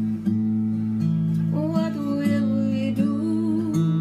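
Acoustic guitar strummed, the chords changing about once a second, with a woman singing a drawn-out, wavering line over it from about a second and a half in.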